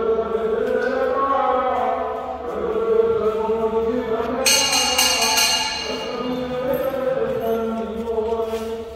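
A hanging temple bell rung by hand about four and a half seconds in, its bright clang ringing for a second or so. Under it runs steady devotional chanting of a mantra.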